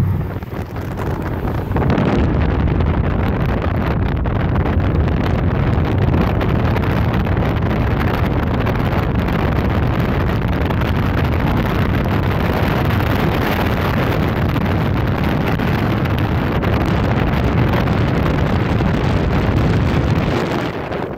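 Wind buffeting the microphone: a loud, steady rushing that rises to full strength about two seconds in and eases slightly near the end.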